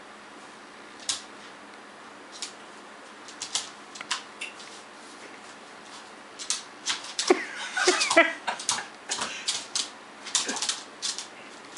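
A Boston terrier's claws clicking and tapping on a laminate wood floor as it paces and shifts around, as scattered single clicks at first, then a busier run of clicks and scuffles from about the middle.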